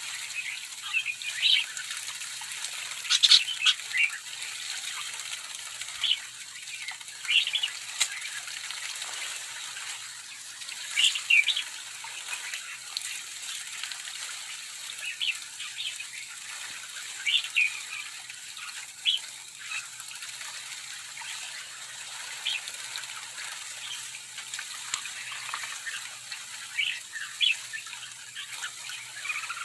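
A flock of sooty-headed bulbuls calling with many short, bright chirps scattered throughout. Wing flutters and splashing come from birds bathing, over a steady high hiss.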